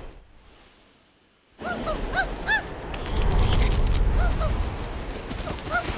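After a moment of near silence, a loud rush of noise with a low rumble and some cracks starts, over which an animated squirrel squeaks: short squeals that rise and fall, several in a row.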